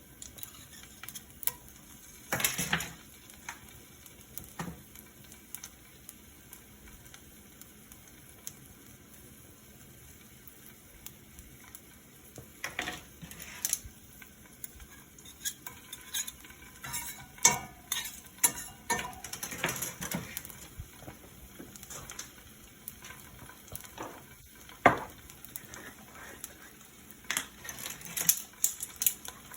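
A utensil scraping and knocking against a cast iron skillet as tomato paste is stirred into garlic and olive oil, with a light sizzle from the hot pan underneath. The scrapes come irregularly, busiest in the middle and near the end, with one sharp knock on the pan about 25 seconds in.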